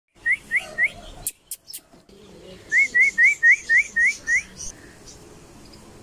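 Indian ringneck parakeet giving short, quick rising chirps: three in a row, then after a brief pause a run of seven.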